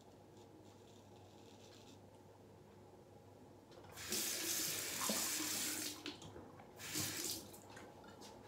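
Water from a bathroom sink tap running, a couple of seconds about four seconds in, then a shorter gush around a second later.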